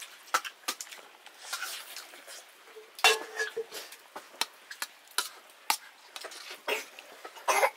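Metal spoon scraping and clinking against a stainless steel plate while mixing rice and curry. There is a run of short clicks, and a louder clang about three seconds in that rings briefly.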